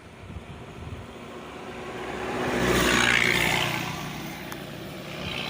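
A car driving past on the road, growing louder to a peak about three seconds in and then fading away.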